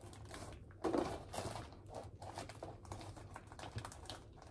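Rustling and irregular light clicking of packaged wax melts being handled and sorted in a box.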